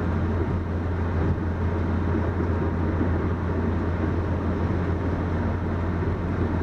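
2005 Ford Focus (2.0 Duratec, 4-speed automatic) driving with a steady low drone and rumble. The owner blames it on a serious transmission fault that makes the car grind, shake and vibrate in overdrive.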